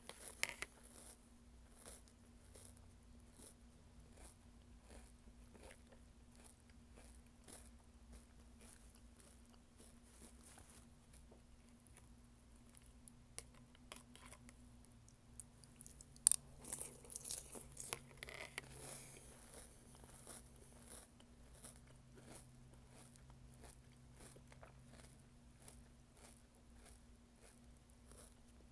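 Close-up chewing and crunching of a mouthful of mini toast cereal in plant milk, with many small crunches and a few sharper clicks, the loudest about sixteen seconds in. A faint steady hum sits underneath.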